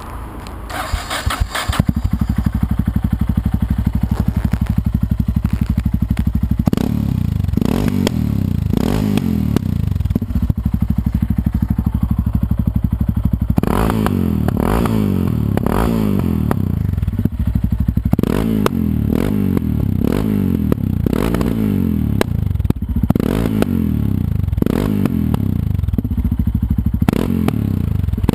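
2004 Yamaha XT660X's single-cylinder four-stroke engine through a Scorpion aftermarket exhaust, coming up to a steady idle about two seconds in, then blipped over and over from about seven seconds on, each rev falling back with sharp crackles and pops from the exhaust on the overrun.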